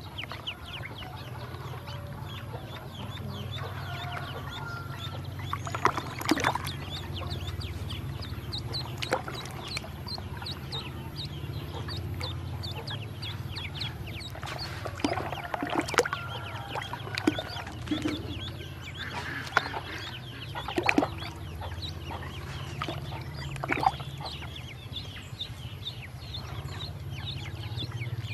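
Ducklings peeping nonstop in quick, high-pitched chirps, with a few louder calls now and then, over a low steady hum.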